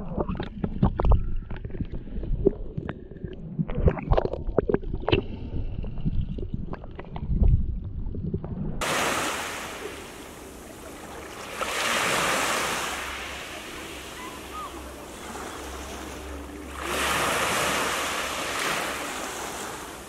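Sea water heard underwater in the shallows, muffled, with irregular sloshing knocks and clicks. About nine seconds in this gives way to small waves washing onto a pebble beach, the wash swelling twice.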